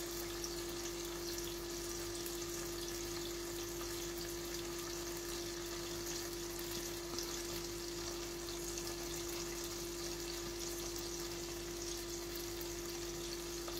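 Tomato sizzling gently in a pan over low heat, a steady crackling hiss, over a steady low hum.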